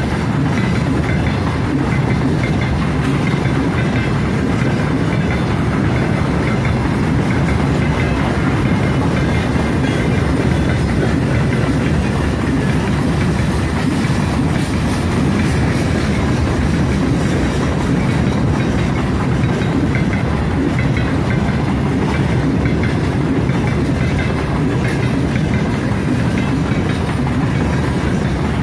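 Open-top freight gondola wagons rolling past, their steel wheels running on the rails with a steady, low rolling noise.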